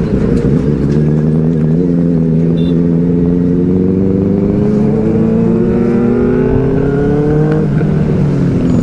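Benelli 600i inline-four motorcycle engine and exhaust pulling hard under acceleration, its note rising steadily for about seven seconds, then falling away near the end as the throttle is eased or a gear is changed.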